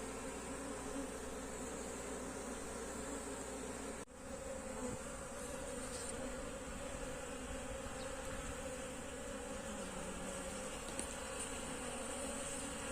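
Many Korean native honeybees (Apis cerana) buzzing steadily around their box hive, a low, even hum of a crowded colony. The sound drops out briefly about four seconds in.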